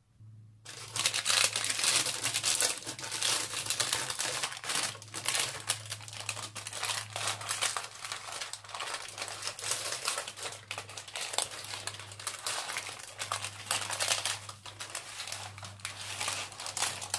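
Baking paper crinkling and rustling continuously as a warm sponge cake is rolled up in it, starting just under a second in, over a low steady hum.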